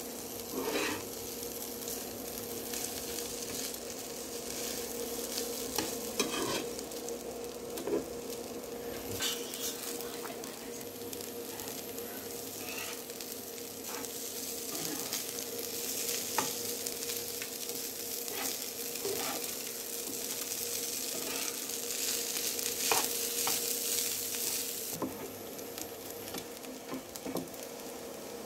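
Egg fried rice sizzling on a hot dosa tawa as it is stir-fried, tossed and scraped with a steel spatula and a wooden spatula. Frequent short scrapes and clicks of the spatulas against the pan sound over the hiss of frying, with a steady low hum underneath.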